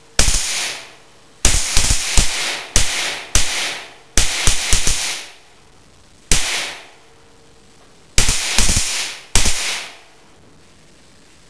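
A series of about fifteen sharp bangs, several coming in quick clusters, each trailing off in a ringing tail of about a second.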